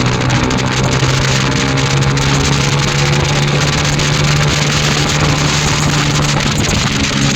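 Single-cylinder 110cc TVS motorcycle engine with an aftermarket SC Project exhaust, running hard at a steady high speed with an even, unchanging pitch, over a rushing noise.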